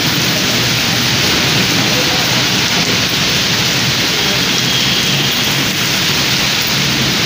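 Rain falling steadily and loudly on a wet paved road, a continuous even hiss.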